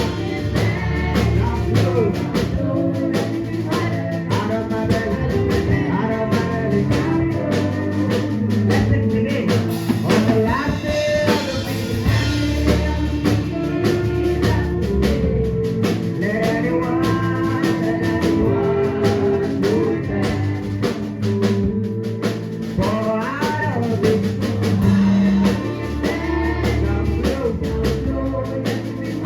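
Live gospel worship band playing a steady groove on drum kit, bass and guitar, with a singer's voice gliding over it.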